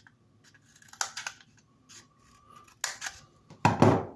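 Small multi-tool scissors snipping through a cardboard toilet-roll tube: several sharp crunching cuts, the loudest and fullest one near the end.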